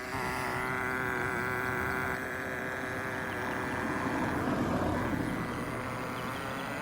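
Nitro engine of a Redcat Racing Lightning STR RC car running steadily, a little rougher about four seconds in. The engine is tuned rich, as the owner says.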